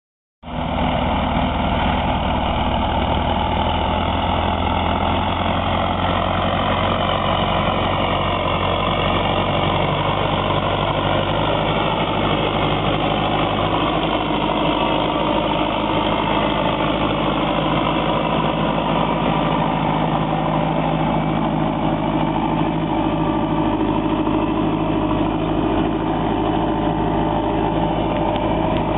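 Fendt 311 Vario tractor's four-cylinder diesel engine running steadily under load as it pulls a reversible plough through the field.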